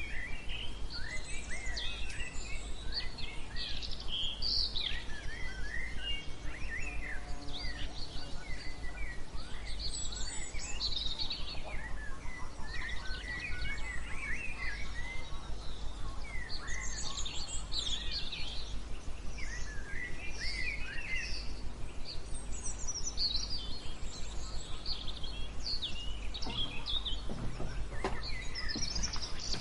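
Many small songbirds chirping and twittering in quick, overlapping calls over a steady bed of white noise.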